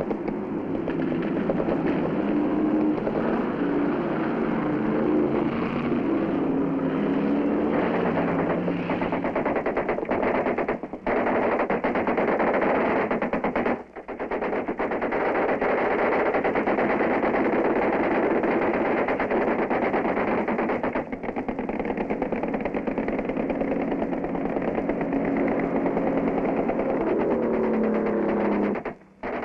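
Heavy machine guns on a river patrol boat firing in long, continuous bursts, a dense fast rattle that breaks off briefly three or four times. The boat's engine runs underneath.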